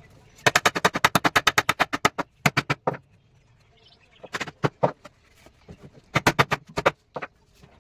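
Rapid tapping of a hand tool striking wood, about ten sharp knocks a second. The knocks come in runs: a long run of about a second and a half, then several shorter runs, and a single knock near the end.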